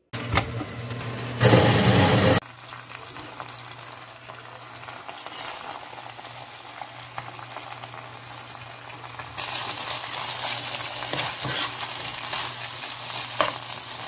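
Rice and spicy pork cartilage sizzling in a hot wok as they are stir-fried with a wooden spatula. A loud surge of sizzling lasts about a second near the start, and the sizzling grows louder again about nine seconds in, with a few light spatula knocks on the pan.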